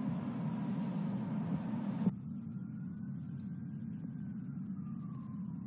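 Steady low rumble of city background sound, with a faint siren wailing slowly up and down in the distance. The sound drops abruptly about two seconds in.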